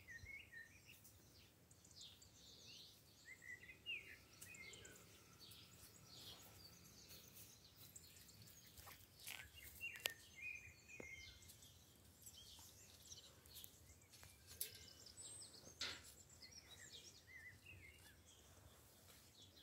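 Faint birdsong from several small birds: many short, high chirps and calls. A few sharp clicks are heard, the loudest about halfway through.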